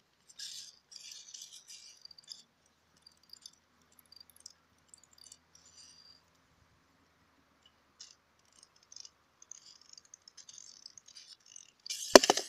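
Small plastic toy handled in the fingers: light clicking and rattling in scattered spells, with one loud knock near the end.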